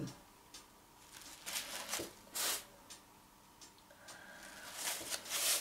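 Soft rustling and crinkling of a crumpled paper towel handled in gloved hands, in a few brief bursts, the loudest near the end.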